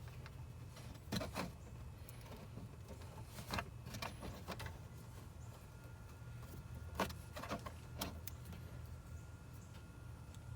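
Scattered light clicks and knocks of hands working on car wiring with a zip tie, a few seconds apart, over a steady low hum.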